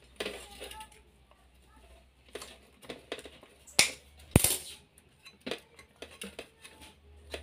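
Clicks, taps and rustles of wires and small tools being handled inside an opened metal battery-charger case, with two sharper knocks about four seconds in, the second with a dull thud.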